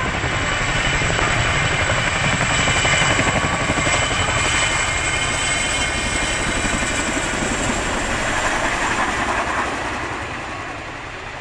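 CH-47J Chinook tandem-rotor helicopter taking off: fast, even rotor chop with a steady high whine from its twin turboshaft engines, growing quieter near the end as it climbs away.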